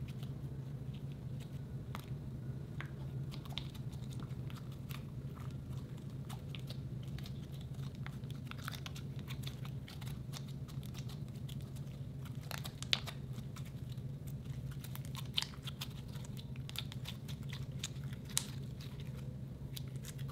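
White slime kneaded and squeezed by hand as lipstick colour is worked into it, giving a continuous run of small sticky clicks and crackles, busier in the second half with a few sharper pops. A steady low hum runs underneath.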